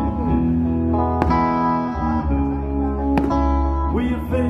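Live band playing a slow instrumental passage: sustained guitar chords and held notes, with a sharp percussive hit about every two seconds.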